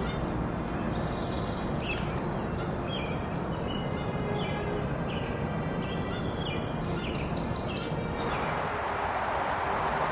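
Birds chirping in short trills and calls over a steady outdoor background hiss; near the end the hiss grows louder.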